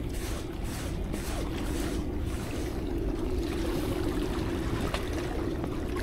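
Spinning reel being cranked to wind in a sabiki rig with a fish on, ticking about three times a second for the first two seconds, over a steady rush of wind and sea.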